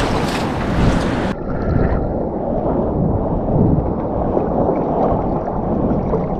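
Sea water and surf washing and sloshing close to the microphone, with wind buffeting it. About a second in, the high hiss cuts off and the sound turns duller and muffled.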